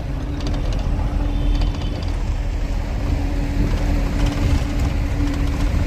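Truck cab interior while driving at speed: steady engine and road noise with a low rumble and a constant hum.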